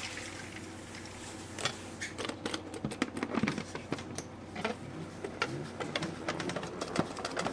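Kitchen knife cutting cabbage on a cutting board: a run of quick, irregular chopping taps.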